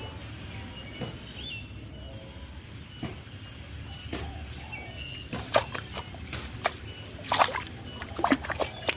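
Water splashing and sloshing in irregular bursts, starting about halfway through, over a steady high insect drone and a few bird chirps.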